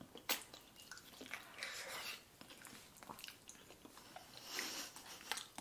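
Faint wet mouth sounds of people chewing soft, creamy ripe durian flesh, with scattered small smacks and clicks.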